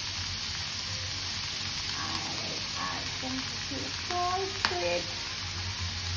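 Shredded cabbage, capsicum and onion sizzling in hot oil in a kadai, a steady frying hiss. A sharp click about four and a half seconds in.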